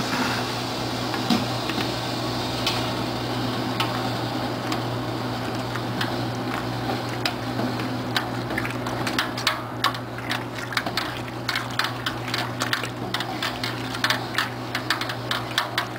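A brew pot of wort on the stove, with a steady low hum and a constant hiss. From about halfway in, quick irregular clicking and tapping sets in and grows denser as thick liquid malt extract is poured in and stirred with a long spoon.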